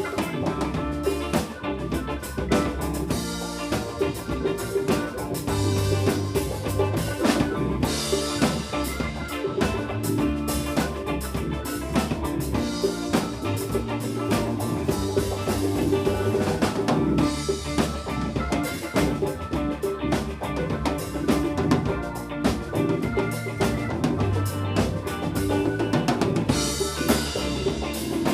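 Live band playing an instrumental funk passage, the drum kit out front with snare, rimshots and kick drum over a low bass line.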